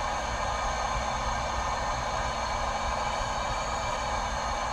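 Steady, even rushing noise with a low rumble underneath, unchanging throughout.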